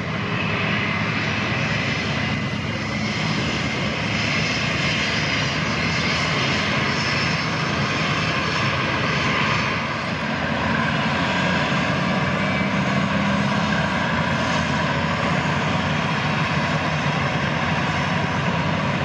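An airplane's engines droning steadily overhead, a continuous rushing roar laced with faint steady whining tones.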